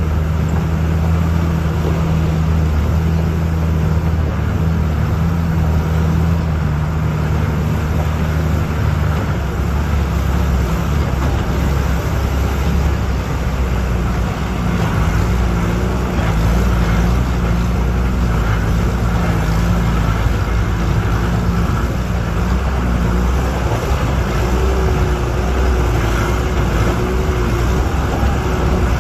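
Bus engine and road noise heard from inside the cabin on a dirt road: a steady low engine drone whose pitch shifts about nine seconds in, over a continuous rumble of tyres and road.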